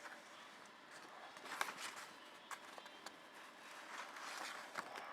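Soft paper rustling and a few light clicks from a CD booklet and digipak being handled, pages being turned.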